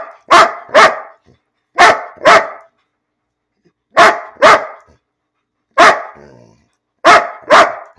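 Large mastiff-type dog barking loudly: about nine deep barks, mostly in pairs about half a second apart, with a pause of a second or so between pairs.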